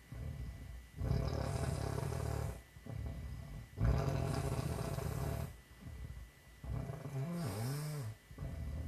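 A woman snoring in her sleep: a snore about every one and a half seconds, stronger and weaker breaths alternating. Near the end one breath carries a brief rising and falling pitched tone.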